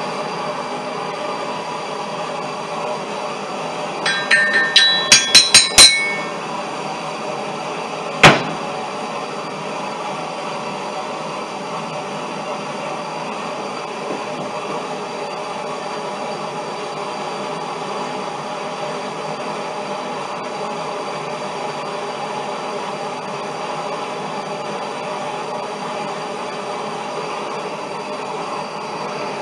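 Hammer blows on ringing steel: a quick run of about eight strikes, followed a couple of seconds later by one hard blow, over a steady mechanical hum.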